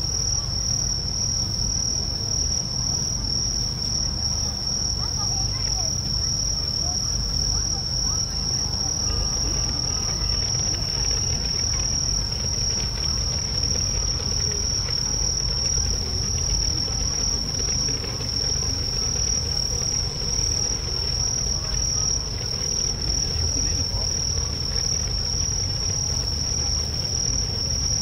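Crickets chirring: one steady, unbroken high trill, over a low steady rumble.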